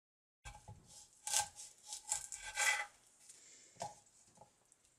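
Kitchen knife cutting Brussels sprouts on a wooden cutting board: a few uneven slicing and scraping strokes with knocks of the blade on the board, starting abruptly about half a second in.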